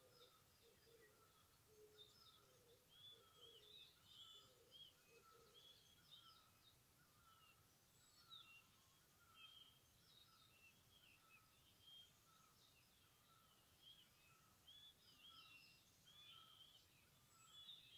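Faint forest birdsong from several birds: quick high chirps and short phrases, another note repeated at an even pace throughout, and low hooting notes that stop about six seconds in.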